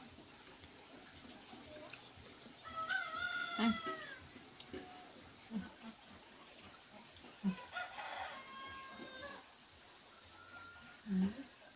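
A rooster crowing twice, once about three seconds in and again, fainter, about eight seconds in. A few short low knocks fall in between, the loudest near the end.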